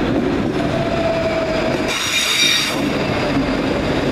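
Electric multiple unit running past along the platform, with a brief high squeal from the wheels on the rails about two seconds in.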